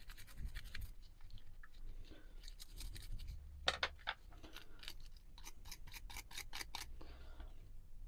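Brushes scrubbing a small metal spoke shave part in a tub of vinegar, a toothbrush and then a stiff wire brush, in spells of quick strokes that run at about five a second in the second half.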